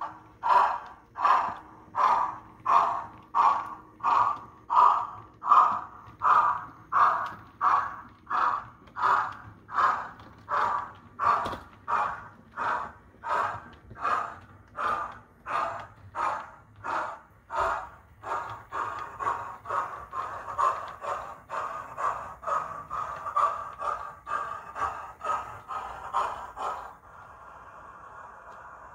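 Sound decoder in a model of Merchant Navy class steam locomotive 35004 playing steam exhaust chuffs as the engine works its train. The beat is even at about one and a half chuffs a second, quickens to about two a second around two-thirds of the way through, and fades as the train draws away. The chuffing stops a couple of seconds before the end, leaving a faint steady hiss.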